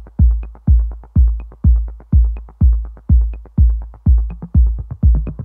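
Background electronic music: a steady kick-drum beat, about two a second, with a light high tick on every other beat.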